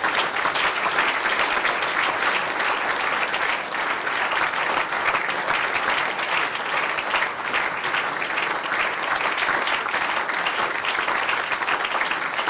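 Large audience applauding: sustained, even clapping from a hall full of delegates.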